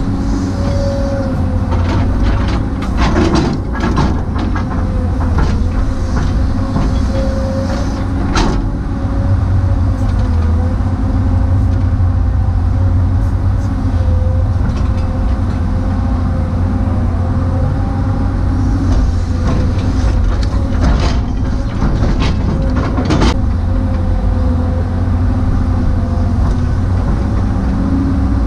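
Tracked excavator's diesel engine running steadily under load while digging, heard from inside the cab, with a thin whine that wavers in pitch. A few sharp knocks and clatters come through, several of them around three to four seconds in, and again about eight, twenty-one and twenty-three seconds in.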